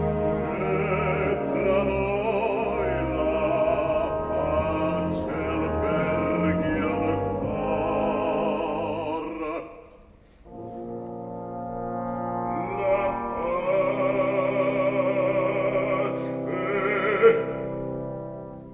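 Operatic bass voice singing with wide vibrato over a full orchestra with low brass and trombones. The music breaks off briefly about ten seconds in, then a second, louder held phrase builds and fades away near the end.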